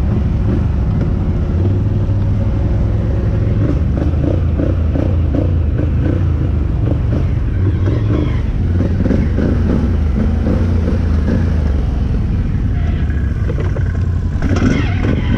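Can-Am 1000 engine running steadily under way, a constant low drone with no clear revving.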